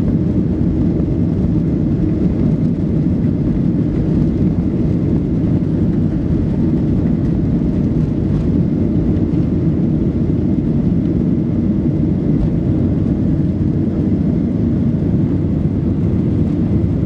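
Boeing 737-800 on its takeoff roll, heard from inside the passenger cabin: the CFM56-7B engines at takeoff thrust together with runway noise make a loud, steady, low noise.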